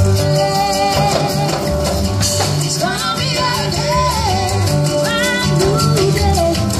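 Live band playing an upbeat, danceable song through stage speakers: acoustic guitar, drum kit and keyboard under a steady beat with a fast shaker-like rhythm on top, and a lead vocal singing the melody.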